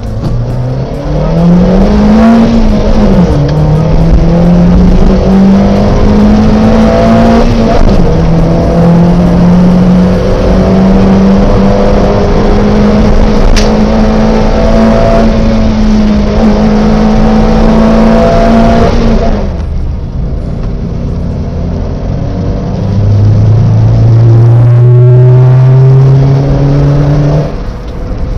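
Toyota Avanza 1.3-litre four-cylinder engine and exhaust pulling hard through the gears, heard from inside the cabin. The revs climb with two upshifts, hold high near 6,000 rpm, then fall away as the throttle is lifted, and a lower, shorter pull rises near the end. The original muffler has been modified for a bigger exhaust sound.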